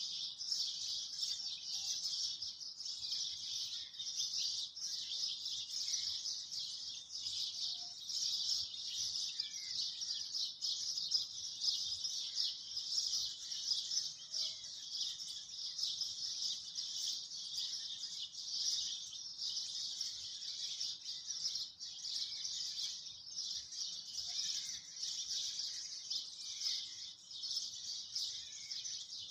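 A dense, steady chorus of chirping birds, with rapid high-pitched chirps running on without a break.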